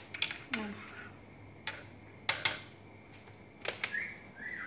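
Cups and utensils being handled at the counter: a scatter of separate sharp clinks and knocks, about eight in all.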